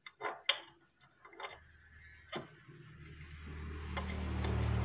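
A few light metallic clicks and taps as the camshaft is handled in the Honda Vario 125's cylinder head. About halfway through, a low hum rises underneath and grows louder toward the end.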